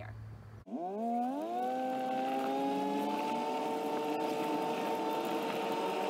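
A vehicle's motor starting off about half a second in, its pitch rising steeply for about a second and then holding steady at speed.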